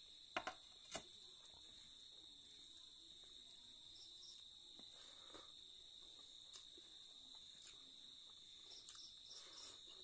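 Crickets chirping steadily in the background, with a few sharp clicks about half a second and a second in and faint sounds of rice being mixed by hand and eaten, a little louder near the end.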